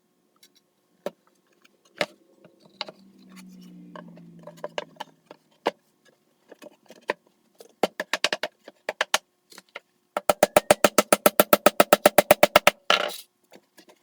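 Hand tools working on the wooden hive body: scattered taps and knocks, then a fast, even run of about ten sharp strikes a second for roughly three seconds near the end, like a hammer driving nails into the box's corners, ending in a short scraping burst.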